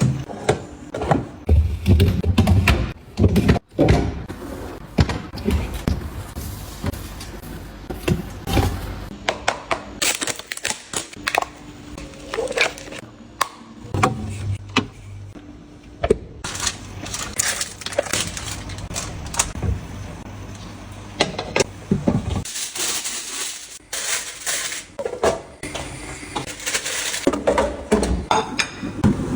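Groceries and food containers being handled and set down, a run of irregular knocks, clicks and rustles, with background music.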